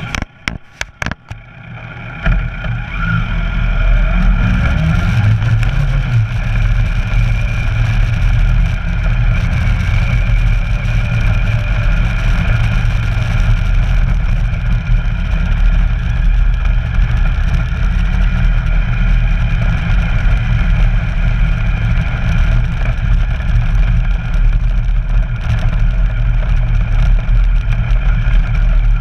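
Kawasaki Versys 1000's inline-four engine pulling away, rising in pitch for a few seconds, then running steadily at low road speed, mixed with wind and road rumble on a camera mounted on the bike's fairing. A few sharp knocks come in the first second.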